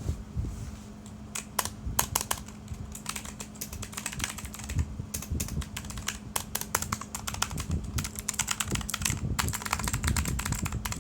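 Typing on a Fantech MK881 mechanical keyboard with clicky blue switches: fast, irregular keystrokes that start about a second in and come thicker near the end.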